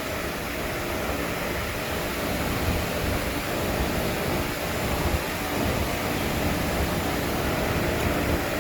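Steady machine noise: an even hiss with a low hum and a few faint steady tones, unchanging throughout.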